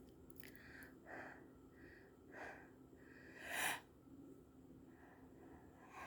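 A person with hiccups breathing: three short, sharp breath sounds about a second apart, the third the loudest.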